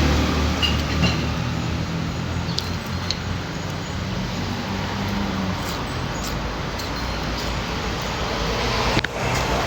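A motor vehicle's engine running steadily with road noise, a few faint light clicks, and a sharp knock near the end.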